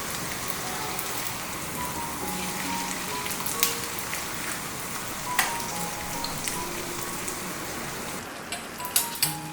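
Skinless pork longganisa sizzling as it fries in oil in a pan, a steady hiss broken by a few sharp pops or taps, two of them close together near the end.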